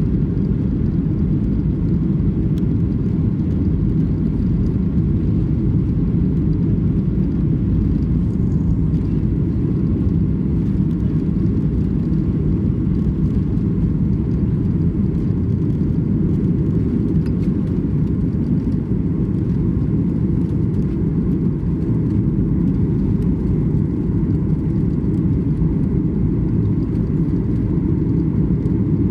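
Steady low rumble inside the cabin of a Boeing 737 MAX 8 airliner, heard from a window seat. It holds even throughout, with no rise or fall in pitch.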